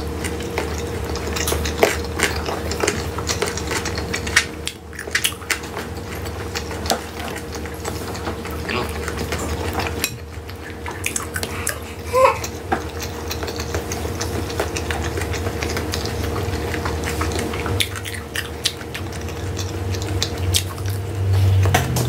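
Eating sounds: chewing and mouth sounds, with scattered short clicks of chopsticks and a spoon against a glass plate, over a steady low hum.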